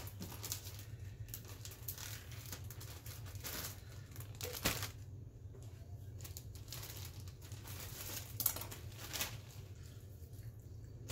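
Plastic zip-top freezer bag crinkling and rustling as it is handled and filled with raw chicken wings, with a few sharper clicks, over a steady low hum.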